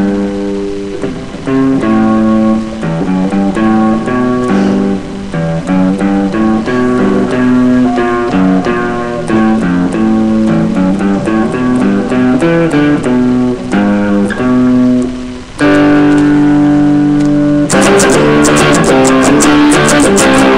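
Electric guitar picking a line of notes that change every few tenths of a second. About fifteen seconds in, a chord rings for a couple of seconds. Near the end it breaks into fast, steady strumming.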